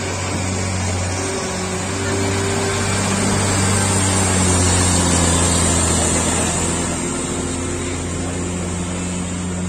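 Diesel engine of a loaded cargo truck pulling up a steep hairpin bend, a steady low drone that grows louder about four to six seconds in as the truck passes close, then eases.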